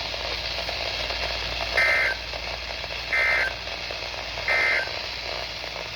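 Three short digital data bursts, about a second apart, over steady radio hiss: the EAS end-of-message code sent by a NOAA Weather Radio broadcast, signalling that the severe thunderstorm warning message has ended.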